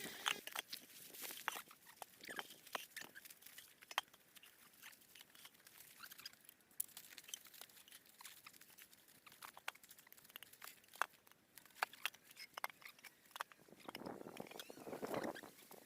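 Faint, scattered crackles and clicks, with a brief rustling swell near the end.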